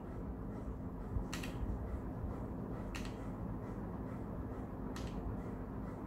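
Steady low background hum with three faint, sharp clicks spaced about one and a half to two seconds apart.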